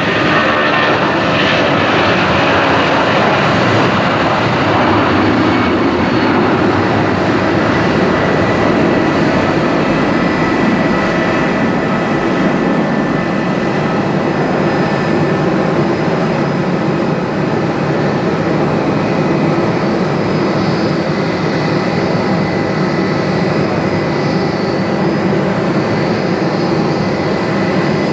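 Four CFM56 turbofan engines of an Airbus A340-300 running at takeoff power: a loud, steady jet noise with a thin, steady whine, easing only slightly over the stretch.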